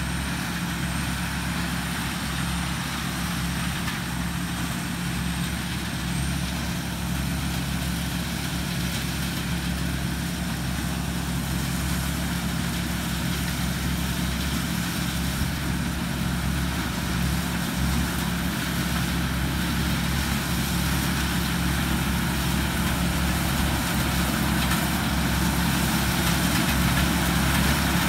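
Isuzu 6HK1 six-cylinder diesel engine of a TAMCO S7000 combine harvester running steadily while harvesting corn, with the machinery's steady whir. It grows gradually louder as the machine comes closer.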